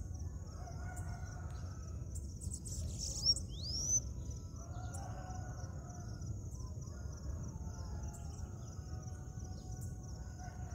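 Birdsong in an open field. A thin, high buzzing runs on throughout, and about three seconds in come two loud whistled notes, each rising in pitch. Fainter lower calls come and go, over a steady low rumble.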